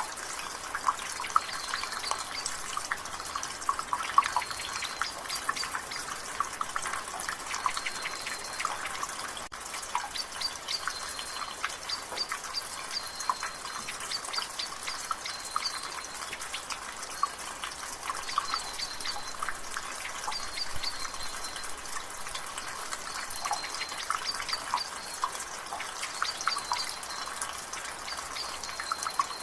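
Water dripping from a rain gutter in quick, irregular drops over the steady hiss of rain and drizzle. A bird gives short high chirps again and again in the background.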